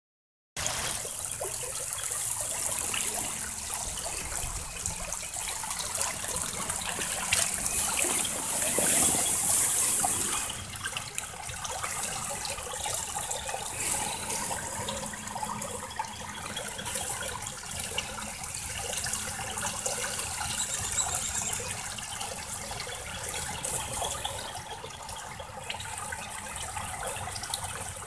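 Water trickling and splashing, with small clicks throughout, loudest around nine seconds in.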